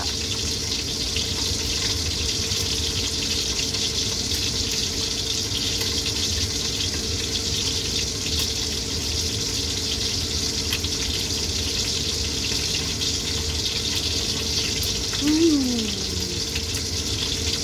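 A steady hiss like running water or a fan, unchanged throughout. About fifteen seconds in comes a short, falling 'mm' hum from the person eating.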